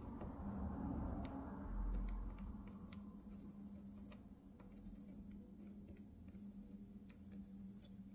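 Faint scattered clicks and light scraping of small metal parts being handled on the soldering bench, over a steady low hum. A soft rumble in the first couple of seconds dies away.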